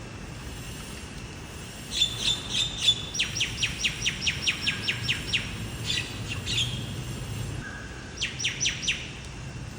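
A songbird singing: three phrases of quick, high, downward-sweeping notes, the longest a fast run of about a dozen notes, over a low steady background rumble.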